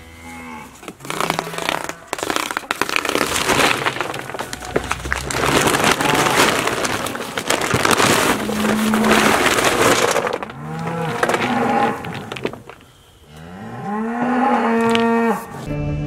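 Range cubes pouring out of a paper feed bag into a cube feeder hopper, a steady noisy pour, while cattle moo three times in the second half, the last moo long.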